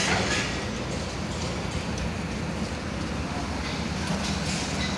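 Heavy diesel machinery running steadily, a low even engine hum with a brief sharp sound right at the start.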